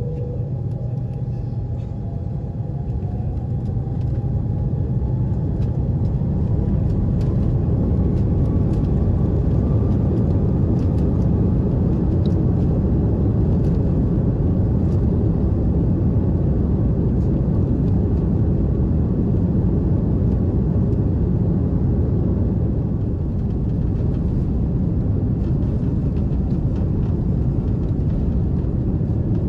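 Airbus A330-300 jet engines spooling up to takeoff power, heard from inside the cabin. A faint whine rises in pitch over the first ten seconds or so as the rumble grows louder, then the loud steady rumble of the takeoff roll continues.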